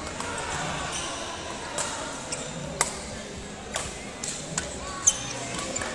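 Badminton rackets striking a shuttlecock in a rally: sharp, irregular cracks, several in the second half, the loudest near the end, echoing in a large hall over a murmur of voices.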